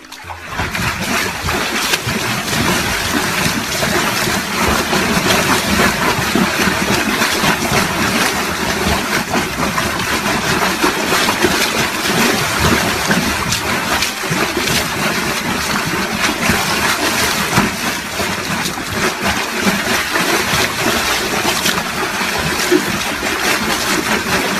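Loud, continuous splashing, water-like noise with a fine crackling texture.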